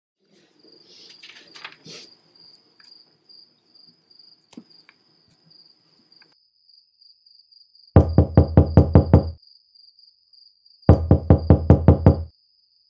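Two loud, rapid runs of knocking on a door, about eight knocks each and a second and a half apart, over a steady high chirr of crickets.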